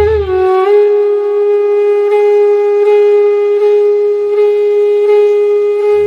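A wind instrument holds one long, steady, high note with a slight dip in pitch at the start, then cuts off.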